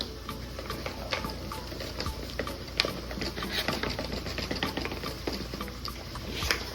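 Flour being scooped and poured into a bowl for a dry batter: irregular light clicks and taps of the measuring cup against the bowl, over a faint steady hum.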